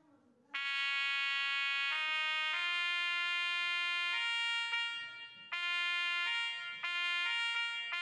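Instrumental background music: a slow melody of long held notes, starting about half a second in after a moment of silence.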